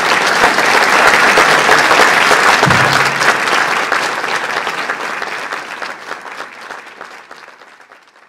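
Audience applauding, loudest in the first few seconds and then dying away to nothing near the end.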